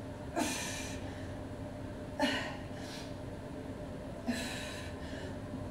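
A woman breathing hard from exertion during tricep dips, with three forceful exhales about two seconds apart.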